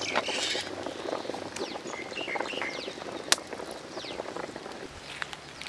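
Outdoor ambience with small birds chirping in short falling notes, a low busy rustle in the first second or so, and a single sharp click about three seconds in.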